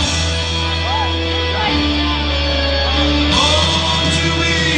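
Loud rock music with guitar, playing for a dance routine.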